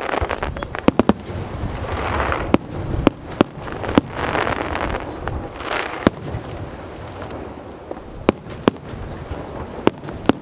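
Aerial firework shells bursting high overhead: about a dozen sharp bangs at irregular intervals, some in quick clusters, over a continuous crackling, hissing wash from the bursts.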